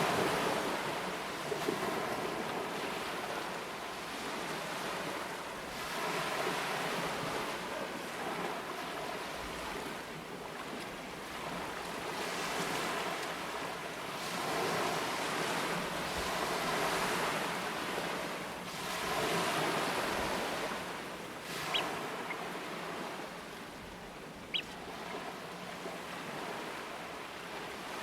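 Surf washing on a shore in swells every few seconds, with wind. Twice near the end comes a short, high piping call, typical of a Eurasian oystercatcher.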